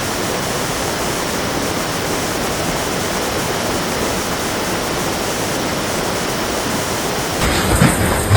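Floodwater rushing in a steady, dense torrent.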